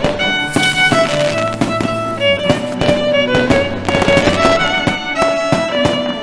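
Music: a melody of held notes, violin-like, over a steady percussive beat.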